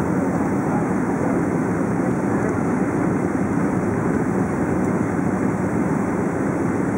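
Steady cabin noise inside a Boeing 777 airliner in flight: an even rush of airflow and jet engine sound, heaviest in the low register, with no change in pitch or level.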